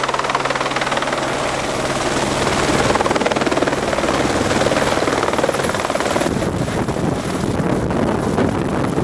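A single-engine helicopter's rotor and turbine running loud as it comes in close and descends to land. From about two-thirds of the way through, rotor downwash rushes over the microphone in gusts.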